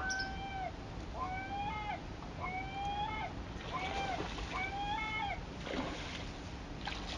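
An animal calling: about five drawn-out calls roughly a second apart, each holding one pitch and dropping at the end.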